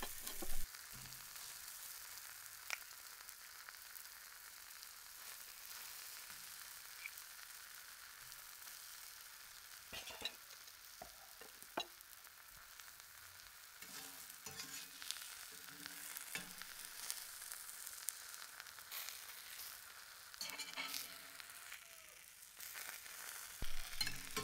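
Buckwheat pancakes frying in a hot pan on a wood stove: a steady sizzle, with a few short clicks and knocks scattered through it and a louder stretch near the end.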